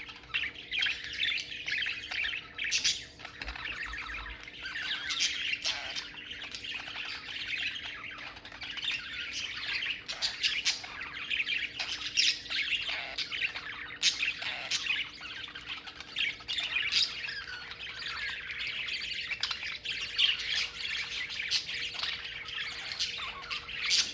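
Budgerigars chattering and warbling nonstop, a dense run of chirps broken by short, sharp squawks.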